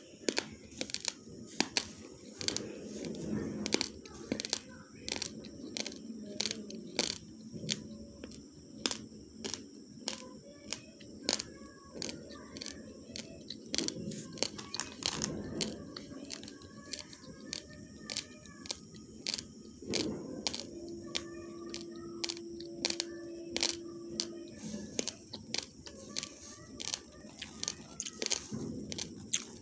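A hand sifting and raking through a heap of dry raw basmati rice on a plastic bag, the grains and plastic rustling with frequent short, sharp clicks and crackles.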